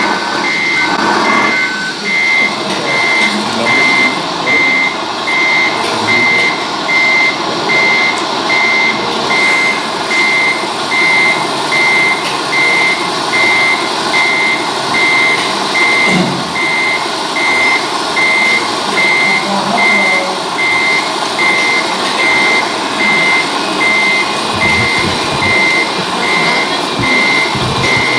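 Reversing beeper of a radio-controlled scale truck, sounding a single high beep about one and a half times a second, steady and unbroken. A second, lower beep stops about two seconds in.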